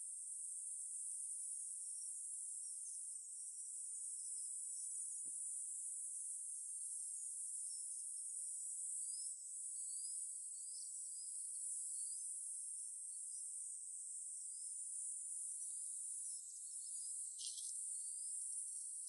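Steady high-pitched insect chorus, with short rising chirps scattered through it.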